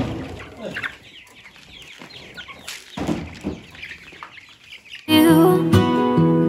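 A flock of young chicks peeping and chirping. About five seconds in, acoustic guitar music starts abruptly.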